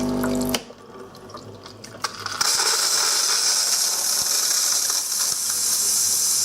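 Bosch Tassimo coffee machine's pump humming steadily and cutting off suddenly about half a second in, then a couple of faint clicks, then a steady high hiss from about two and a half seconds in. The pump runs on uncontrolled because an internal pipe has come adrift.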